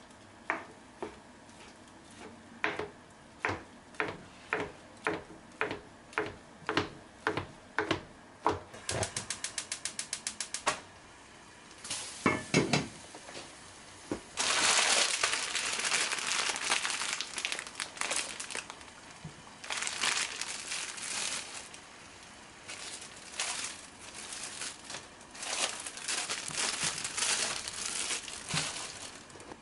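Kitchen knife chopping thin egg omelette on a plastic cutting board: steady knocks at about one and a half a second, then a quick run of rapid chops. After that comes a loud crackling hiss in broken stretches, from a pot of water at a rolling boil with noodles going in.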